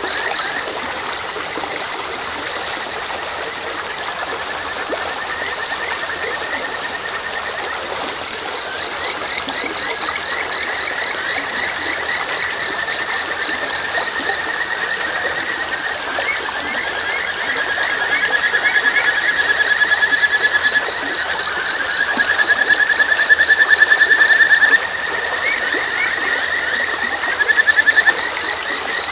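Kajika frogs (Buergeria buergeri) calling in long trilling runs of rapid notes, with three louder runs in the second half. Beneath them are the steady murmur of a river and the chirping of crickets.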